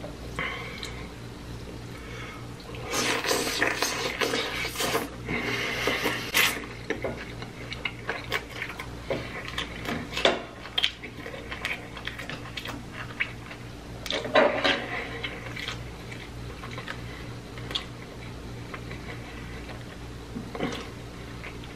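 Close-miked eating and food handling: chewing, rustling and clicks of food and containers being handled, in irregular bursts that are busiest a few seconds in and again about two-thirds through. Under it runs a steady low electrical hum.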